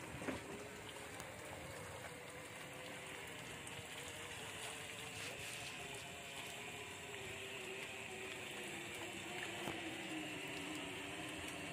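Water pattering down from a raised khora lift net into the river, like rain on the water's surface. A faint wavering hum sits underneath.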